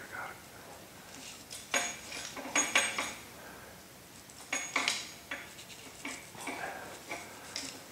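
Metal hand tools clinking and scraping in short clusters, about two seconds in and again about five seconds in, with a brief metallic ring: safety-wire pliers and steel safety wire being worked at the crankshaft-to-flywheel bolts.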